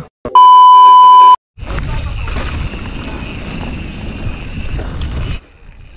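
A loud electronic beep at one steady pitch for about a second, then the rush of wind and tyre noise from a mountain bike rolling along a dirt path, picked up by a helmet-mounted camera; the riding noise drops away about five seconds in.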